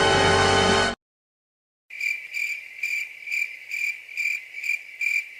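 Music that cuts off abruptly about a second in. After a short silence comes a cricket chirping, an even high-pitched chirp about two or three times a second: the stock 'awkward silence' crickets sound effect.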